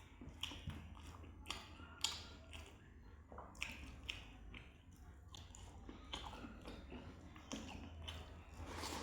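A person chewing and eating a rice meal with a soft, wet mouth. There are irregular smacking and clicking mouth sounds, the sharpest about two seconds in.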